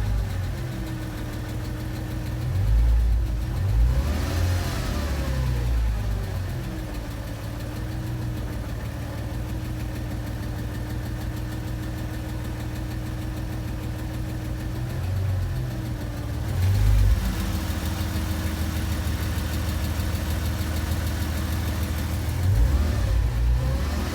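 Porsche Boxster 986 flat-six idling with a fast ticking, revved briefly three times: about three seconds in, around fifteen seconds in, and near the end. The ticking comes only when the engine is very hot, and the owner is unsure whether it is the lifters or the exhaust.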